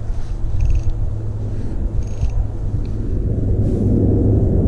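Wind buffeting the camera microphone, a steady low rumble, with a few short bursts of fast ticking.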